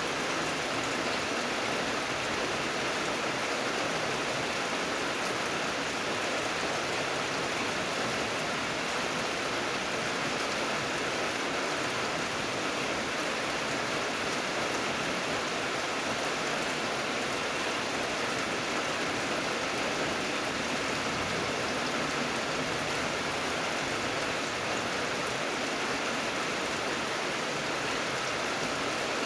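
Steady rain falling on a surface, an even hiss with no change in strength.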